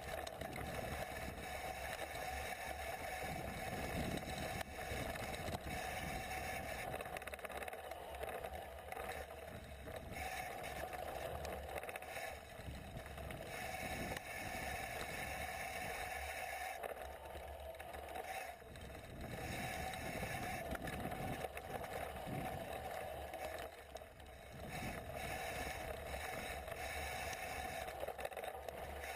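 Mountain bike rolling down a dirt forest trail, picked up by a GoPro HD2 on the rider: a steady rush of wind and tyre noise with frequent knocks and rattles from the bike over bumps.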